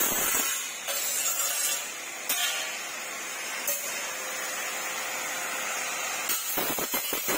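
Compressed air hissing steadily from a workshop air tool, the sound changing abruptly several times. A run of rattling clicks and knocks comes near the end.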